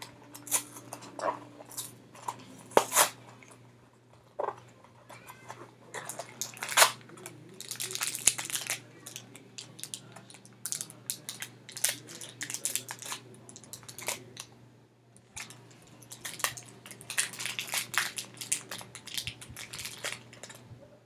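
Crinkling and rustling of blind-box packaging being opened and handled by hand, in irregular bursts with small clicks and taps, busiest about six to nine seconds in and again from about sixteen to twenty seconds.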